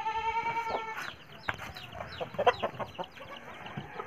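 Chicks peeping in many quick, falling chirps, with a hen clucking. One longer held call comes in the first second.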